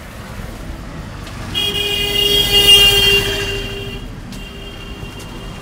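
A vehicle horn sounding, swelling to a loud, steady honk for about two seconds as it passes close by, then fading back to fainter honking, over road traffic noise.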